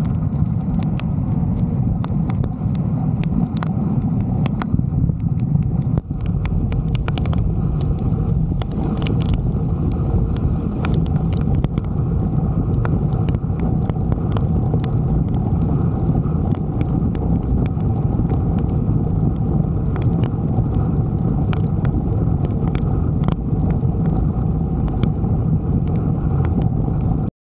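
Wind rush and road noise from a car driving at speed on a wet highway, picked up by a camera mounted outside the vehicle: a steady heavy low rumble with scattered sharp ticks, busiest in the first dozen seconds. It cuts off suddenly near the end.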